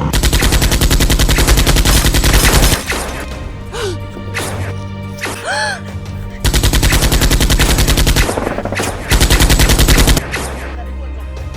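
Three bursts of rapid automatic gunfire, the first and longest lasting nearly three seconds, a second about halfway through and a short third near the end, with background music between them.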